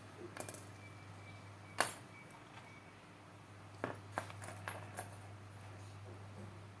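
Small sharp clicks and taps of metal tools on a wristwatch under repair: one louder click about two seconds in, then a quick cluster of lighter clicks, over a steady low electrical hum.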